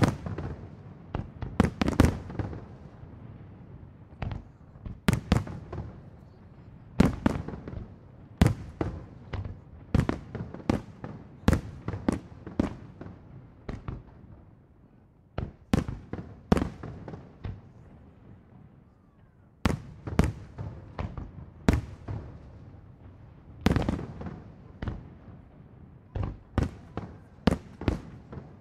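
Aerial fireworks shells bursting: dozens of sharp, echoing bangs at irregular intervals, some in quick clusters, with a short lull a little past halfway.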